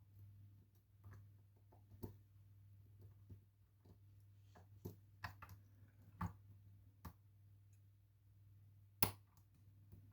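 Faint, scattered clicks and taps of lock picks working the pins of a Lockwood Twin lock, with a sharper click about nine seconds in, over a steady low hum.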